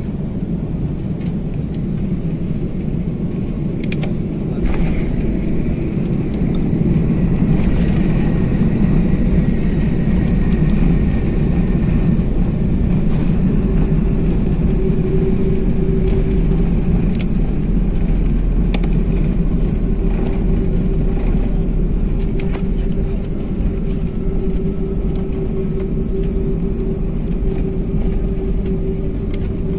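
Airliner landing, heard from inside the cabin: a steady roar of engines and rushing air, with sharp knocks about four and five seconds in around touchdown. The roar then grows louder and rumbles as the plane rolls out on the runway.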